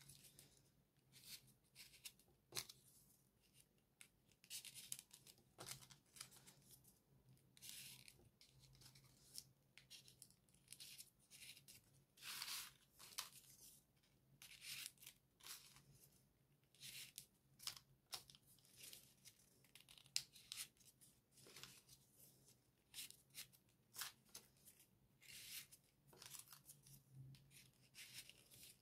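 Folded paper origami modules being handled and pushed into place one after another: faint, irregular crisp paper rustles, scrapes and clicks.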